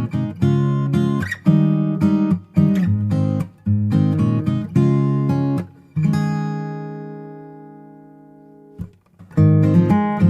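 Background music: acoustic guitar strumming chords, with one chord left to ring and fade out about six seconds in before the strumming starts again near the end.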